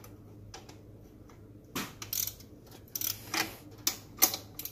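Metal clicks and clinks of a wrench working the rear chain-adjuster bolt on a 110cc Chinese ATV's axle carrier as it is turned to tighten the drive chain. Scattered sharp clicks start a little under two seconds in, the loudest near the end.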